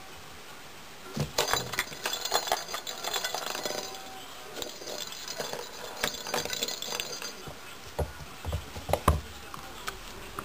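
Cat toy ball with a bell inside, jingling as a kitten bats and chases it: a rapid, irregular run of small clinks for several seconds. A few dull thumps come near the end.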